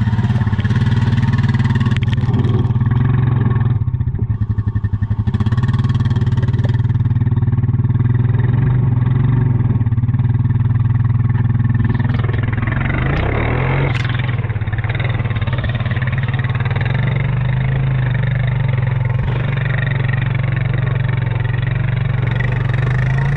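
Vehicle engine running steadily while driving, with a stretch of fast rattling about four seconds in and a brief rising surge around thirteen seconds.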